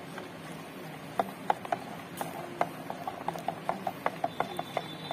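Acid slurry and water being stirred in a plastic measuring jug, the stirrer knocking against the jug in quick irregular clicks, about three or four a second, starting about a second in.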